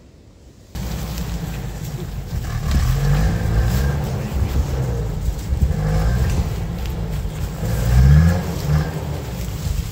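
SUV engine revving up three times, each a rising pitch, over a steady low rumble of wind on the microphone.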